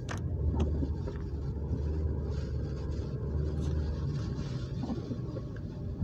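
Car driving on a snowy road, heard from inside the cabin: a steady low rumble of engine and tyres that swells and eases slightly, with a sharp click right at the start.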